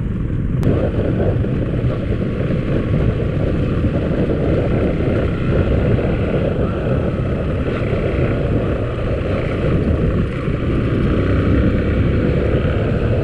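Motorcycle on the move: a steady rush of wind on the microphone over engine and road noise, with a single sharp click about half a second in.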